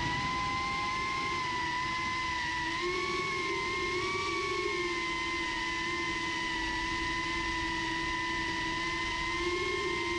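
Drone motors and propellers whining in flight: a steady pitched whine that rises and dips slightly with the throttle, over a rushing noise of the air.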